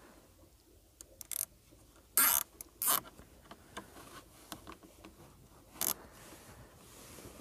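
Four short, sharp rasping scrapes from hands at work on the garland wiring and its plastic fittings. The loudest and longest comes a little over two seconds in; the others are single quick strokes.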